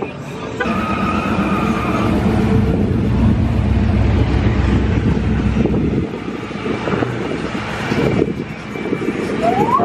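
Car engine rumbling low as a car rolls slowly past, the rumble easing off about six seconds in. A steady high tone sounds for about a second and a half near the start.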